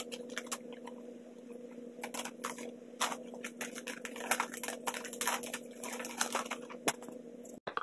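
Gift-wrapping paper crinkling and rustling irregularly as it is pressed around a box and its ends folded in. A steady low hum runs underneath and cuts off near the end.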